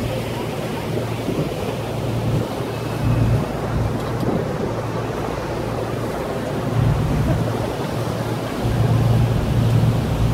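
Wind buffeting the microphone in gusts on the open deck of a river tour boat under way, over a steady rush of water and boat noise.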